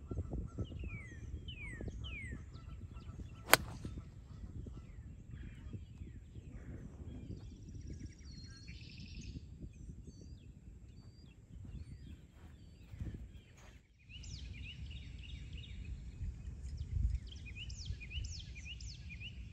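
A 2-iron striking a golf ball about three and a half seconds in: one sharp click, the loudest sound here. Birds chirp throughout over a low rumble of wind on the microphone.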